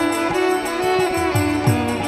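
Devotional kirtan music: group singing over a steady sustained drone, with hand-drum strokes that slide down in pitch and rhythmic high metallic clashes.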